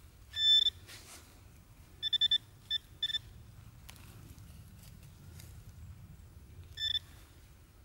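Metal detecting pinpointer giving short high electronic beeps as it is probed through the loose dug soil: one beep, then a quick run of beeps about two seconds in, two single beeps, and one more near the end. The beeps signal a metal target close to the probe tip, already lifted out of the hole into the spoil.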